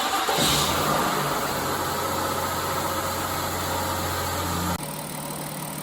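Mazda MPV's 3.0-litre V6 idling steadily, warmed up; the sound cuts abruptly to a quieter steady hum near the end.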